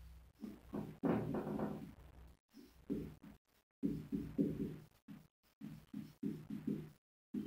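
Whiteboard marker writing on a whiteboard: a run of short rubbing strokes, one per pen movement, with brief silent gaps between them.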